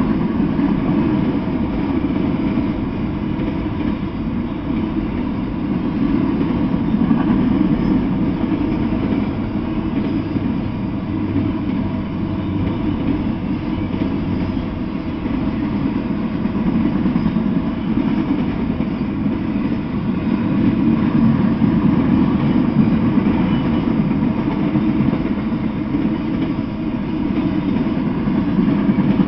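Freight train of autorack cars rolling past: a steady, continuous rumble of steel wheels on the rails, with no breaks or distinct clanks.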